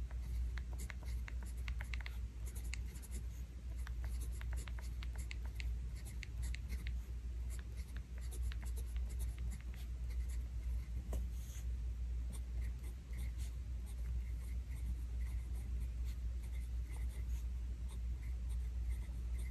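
TWSBI ECO fountain pen nib scratching across a Hobonichi Cousin planner page in short handwriting strokes, dense at first and sparser in the second half, over a low steady hum.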